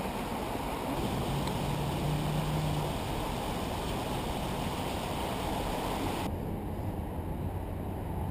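Steady rushing outdoor noise of city traffic, with wind on the microphone. A low hum comes through briefly about a second in, and the hiss drops away sharply about six seconds in.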